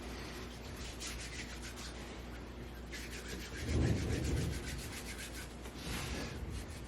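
Hands rubbing over skin and clothing in quick, even repeated strokes, as in massage of the muscles. A brief low muffled sound about four seconds in.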